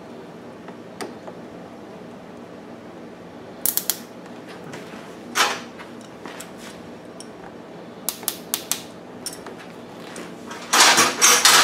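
Scattered clicks and taps of tools and parts being handled, then near the end a loud clatter of small metal parts and tools being rummaged through.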